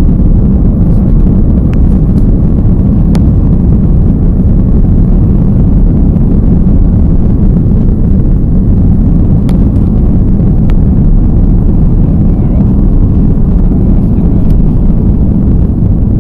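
Airliner engines at takeoff power heard from inside the cabin: a loud, steady, deep rumble with a few faint ticks.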